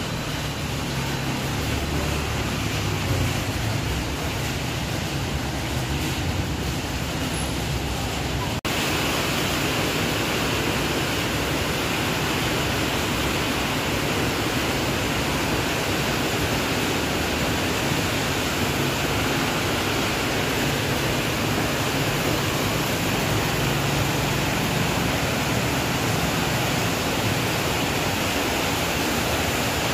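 Steady rain falling, an even hiss with no break in it, a little heavier from about nine seconds in.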